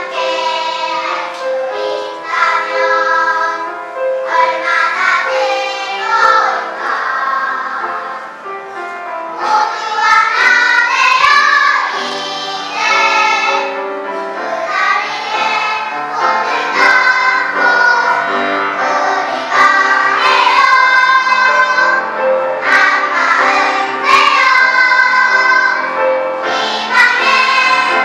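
Children's choir singing a song in parts, with phrases swelling louder about ten seconds in and staying full through the rest.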